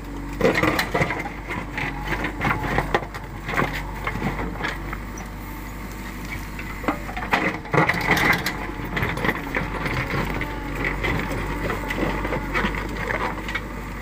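JCB 3DX backhoe loader's steel bucket dragging through stony soil, with irregular crunching and knocking of rocks against the bucket over the steady running of the machine's diesel engine.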